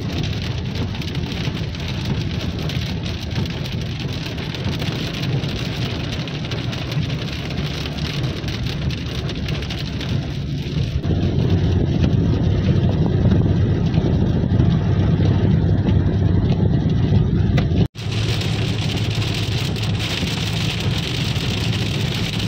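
Steady road noise heard from inside a moving car in the rain: a low engine and tyre rumble with the hiss of rain and wet tarmac. It grows louder about halfway through and drops out for an instant near the end.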